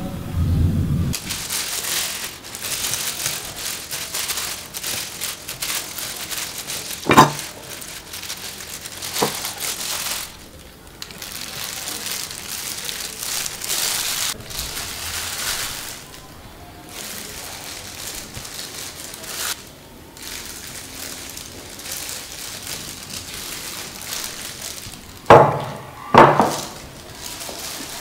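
Rustling, crinkling handling sounds as plastic-gloved hands move and scoop a raw-shrimp salad from a glass dish onto a plate. There are a few sharp knocks of dishes, with two loud ones close together near the end.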